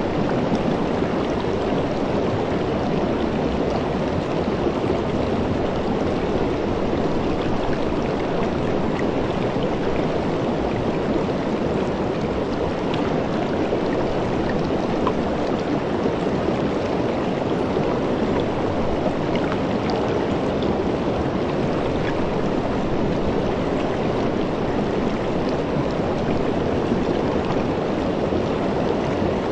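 Shallow river running over rocks: a steady rush of water, fuller in the low and middle range than hissing.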